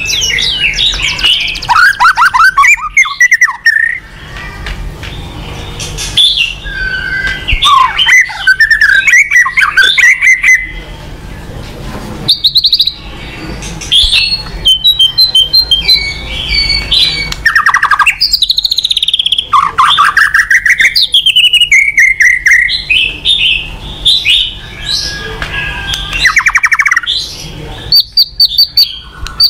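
White-rumped shama (murai batu) singing a loud, varied provocation song: whistled phrases, rising and falling glides and harsh, rapid chattering notes, broken by a few short pauses.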